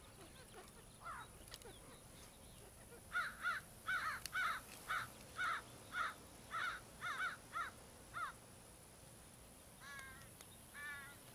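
A crow cawing: a quick run of about a dozen caws, roughly two a second, then two more calls after a short pause near the end.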